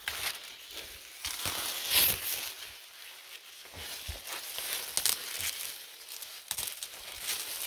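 Dry leaves and stalks rustling and crackling as crops are picked by hand, with irregular crisp snaps and rustles, the loudest about two seconds in and again about five seconds in.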